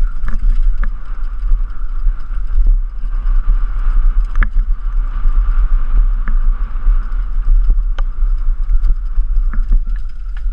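Downhill mountain bike running fast over a rough dirt trail, heard from the rider's camera: heavy wind buffeting on the microphone, rattling of the bike and tyres over dirt and leaves, and a steady high buzz, broken by sharp knocks from bumps, several of them, the clearest about four and eight seconds in.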